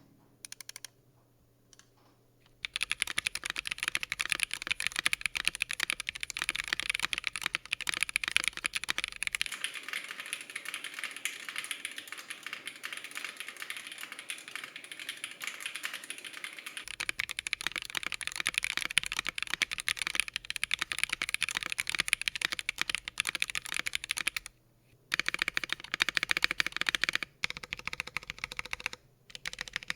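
Continuous fast typing on the Akko MOD007S V2, a gasket-mounted aluminium 75% mechanical keyboard fitted with Akko POM Pink switches: a dense run of keystroke clicks. It starts after about two and a half seconds of near silence, breaks off briefly near the middle of the second half, and pauses twice more towards the end.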